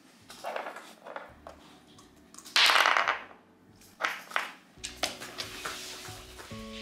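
A Samoyed puppy biting and mouthing a hard ice cube, making irregular crunches and clacks as the ice is chewed and dropped on the wooden floor; the loudest crunch comes about two and a half seconds in. Faint music starts near the end.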